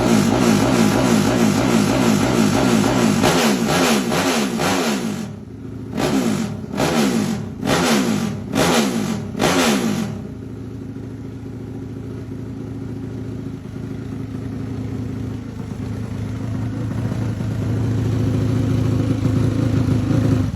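Single-cylinder motorcycle engine of a Honda Sonic, built up with a Yamaha MX King head and block and an 86 mm big-bore piston, revved hard over and over. It then takes about five short, sharp throttle blips and settles into a lumpy idle.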